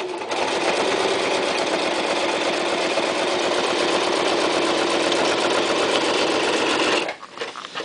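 Toyota Super Jeans J34 domestic sewing machine running at a steady speed, stitching through soft leather of about 6 ounces with a rapid, even needle rhythm. It stops suddenly about seven seconds in.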